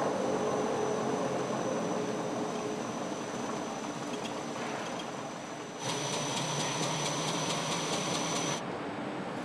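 Car factory machine noise: a steady mechanical hum. Near the middle it turns louder for about three seconds, with a high whine and rapid even ticking, as a car's tyre spins on the rollers of a rolling-road test stand.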